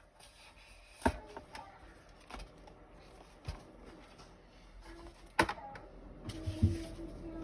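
Objects being handled and set down on a desk: scattered clicks and knocks, with two sharper knocks about a second in and past five seconds.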